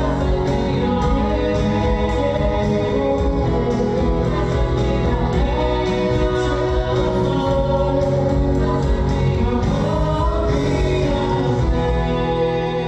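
Praise band singing a worship song in several voices with acoustic guitar, keyboard and drums on a steady beat of about two strokes a second. Near the end the beat stops and the final chord is held, starting to fade.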